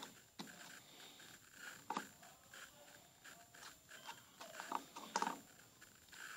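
Hands handling slime and clear plastic cups: a string of soft clicks and squishy sounds, louder about two seconds in and again around five seconds in.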